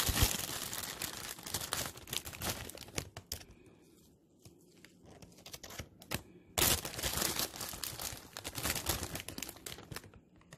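Packaging crinkling and rustling as it is handled, in two bouts: the first fades out about three seconds in, and the second starts suddenly about six and a half seconds in.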